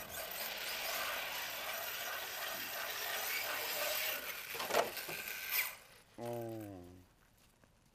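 HPI radio-controlled truggy driving and sliding over snow, its drivetrain whirring under the spinning tyres, with two sharp knocks about five seconds in before the running stops. A brief low sound falling in pitch follows about a second later.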